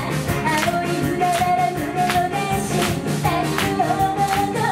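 Live pop band playing: a woman singing held notes into a microphone over a steady drum beat, with electric guitar and bass.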